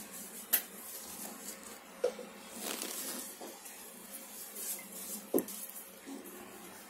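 Handling noise from a heavy glass perfume bottle turned in rubber-gloved hands: soft rubbing with a few light clicks and knocks, about half a second in, around two seconds in, and again about five and a half seconds in.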